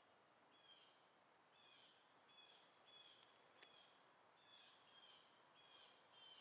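Faint bird calls: short, high chirps repeated about twice a second, with an irregular spacing, over a quiet background hiss.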